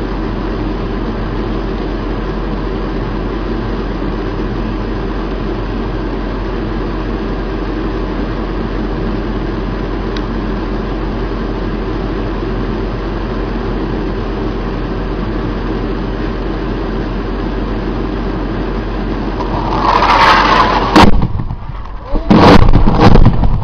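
Steady rumbling background noise, then near the end a swelling rush with a sliding whine and two sharp, loud blasts about a second and a half apart: a JDAM guided bomb striking its target.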